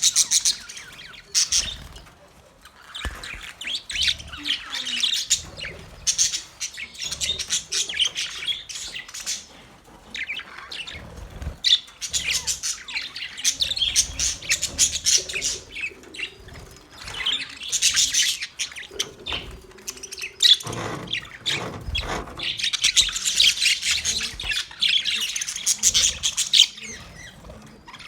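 Male budgerigars chirping and warbling in rapid high bouts with short pauses between them.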